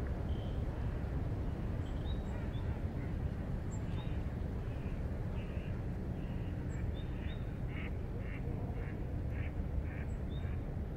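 Outdoor ambience: a steady low rumble with short bird calls scattered over it, turning into a quick run of about two calls a second in the second half.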